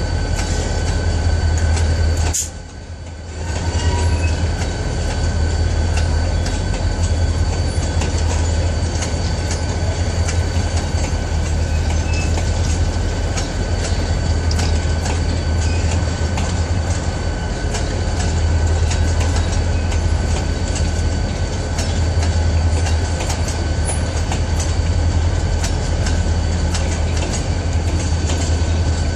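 Freight train's boxcars and hopper cars rolling past at close range: a steady heavy rumble of wheels on rail with scattered clicks as the wheels cross rail joints. The sound drops briefly about two and a half seconds in.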